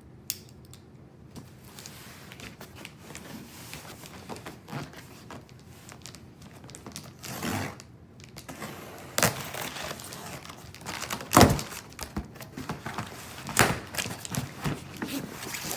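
Cardboard shipping box and packing being handled and opened: rustling and crinkling, with scattered knocks and thumps, the loudest about eleven seconds in.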